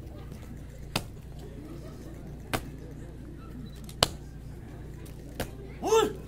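Four sharp slaps about a second and a half apart over faint crowd chatter, followed near the end by a loud shouted "hoy!".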